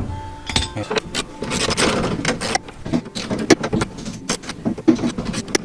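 Irregular metallic clicks and rattles from hand work on the window hardware inside a 1987 Chevy S10 pickup door, with a longer scraping rattle about two seconds in.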